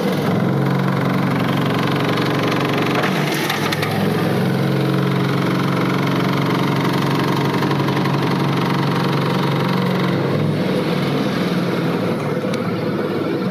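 Electric-motor-driven mini coir fibre extraction machine running at speed with a steady low hum while a coconut husk is shredded through it into coir fibre and pith. There is a rattling patch about three seconds in, and the hum thins out about ten seconds in.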